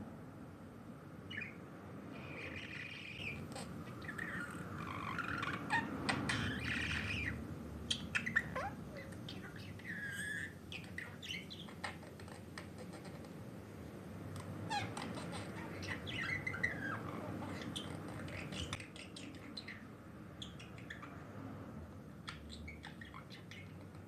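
Pet budgerigar chattering: quick runs of chirps, squawks and warbling, busiest in the first half and again a little past the middle, then only scattered chirps toward the end.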